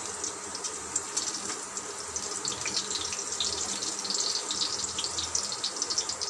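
Bottle-gourd (lauki) pakoras frying in hot oil in a steel kadai: a steady sizzle with many small crackles.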